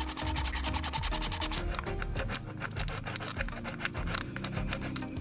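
Hacksaw blade sawing through the neck of a plastic bottle, rapid rasping strokes, over background music.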